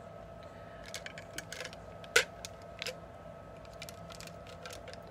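A few light, scattered clicks and taps from small objects being handled, the sharpest about two seconds in, over a faint steady hum.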